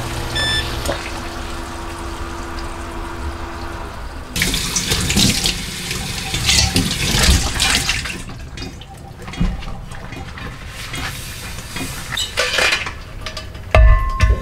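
Kitchen faucet running into a sink while a square stainless steel pan is rinsed under it, the water hissing and splashing unevenly. A few short electronic beeps sound about half a second in, and a solid knock near the end as the pan is set into a dish rack.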